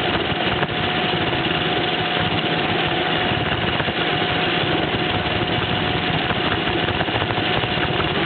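Roomba robot vacuum running, heard from a camera mounted on top of it: a steady whir of its vacuum motor and brushes with a held whine and light rattling.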